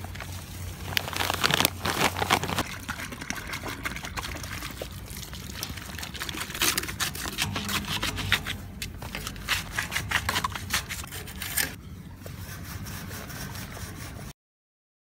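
Concrete mix and water being poured into a hole around the base of a metal post: a gritty, crackling trickle with the rustle of the bag, in several spells. The sound cuts off suddenly near the end.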